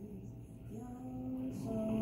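Telephone hold music coming through a phone on speaker, starting faintly and growing louder toward the end, with sustained notes.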